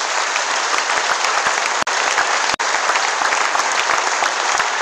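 A large audience applauding steadily, a dense patter of many hands clapping, broken by two split-second dropouts near the middle.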